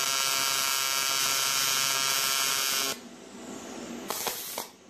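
AC TIG welding arc on aluminum buzzing steadily, the torch held at an extreme angle. The buzz cuts off about three seconds in, and a short burst of noise follows near the end.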